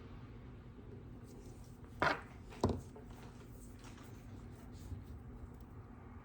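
Two short, sharp knocks about half a second apart, like hand tools being set down or tapped on a workbench, over a steady low hum.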